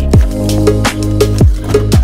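Background music with a steady beat: sharp drum hits and deep bass notes that drop in pitch, about two a second.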